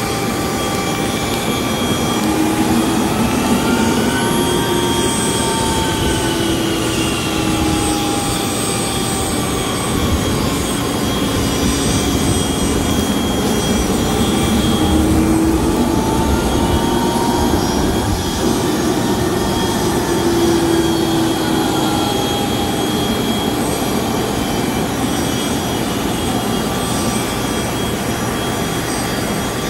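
Business-jet turbofan engines running at taxi power: a steady rush with whining tones that slowly glide up and down in pitch.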